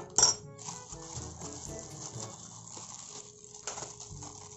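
Clear plastic bag and bubble wrap crinkling and rustling as they are handled, with one louder, sharper crackle just after the start.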